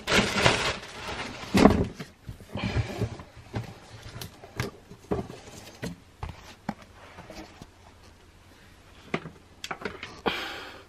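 Handling noise as a cardboard gift box and its packaging are moved about and set down: rustling with scattered knocks and taps, the loudest in the first two seconds and again near the end.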